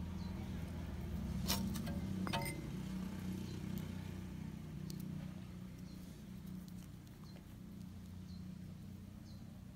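A steady low engine-like hum that slowly fades away, with two sharp clicks about one and a half and two and a half seconds in.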